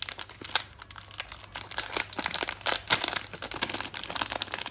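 Packaging crinkling in quick, irregular crackles as a pair of earrings is unwrapped.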